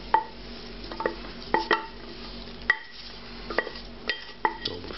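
A utensil clinking and scraping against a metal pot, about nine sharp ringing clinks spaced unevenly, as the wine-deglazed pan contents are scraped out into a braising dish.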